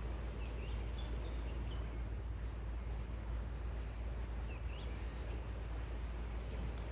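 Wind blowing across the microphone, a steady low rumble with a hiss over it. Faint short bird chirps come through a few times in the first two seconds and once more near the middle.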